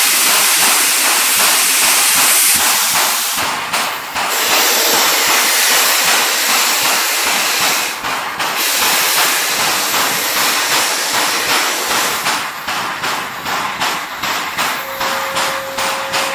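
JS-class 2-8-2 steam locomotive hissing loudly and steadily as steam blows from its cylinder drain cocks while it stands with a heavy loaded coal train. About twelve seconds in, regular exhaust beats, about two a second, start under the hiss as it begins to pull away.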